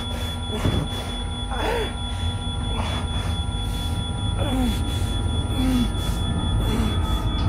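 A man groaning in pain, short falling moans roughly every second, over a steady high ringing tone and a low rumble.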